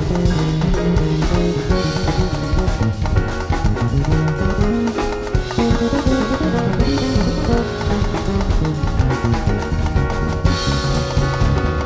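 A live band plays: an electric bass line with drum kit hits and cymbals.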